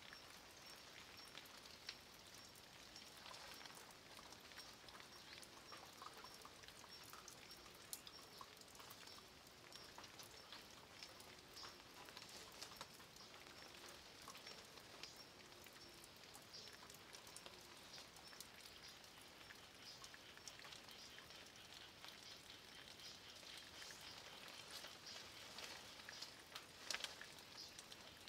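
Faint rain falling on a mossy stone wall and leaves, with many separate drop ticks scattered through it and a few louder drops near the end.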